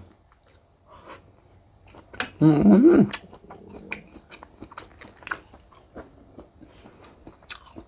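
Mouth sounds of eating grilled giant river prawn claw meat, with scattered small clicks and crackles of shell being handled. There is one short vocal sound from the eater about two and a half seconds in.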